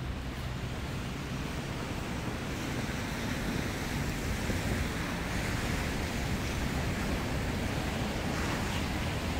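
Steady rush of city traffic on a snowy street, with wind buffeting the microphone; the noise slowly grows louder.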